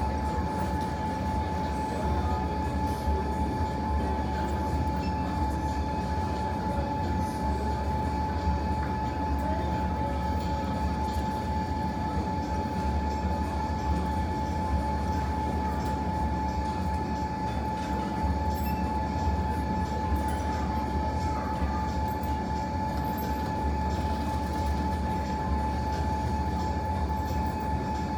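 A steady low mechanical rumble with a constant high whine running over it, unchanging throughout.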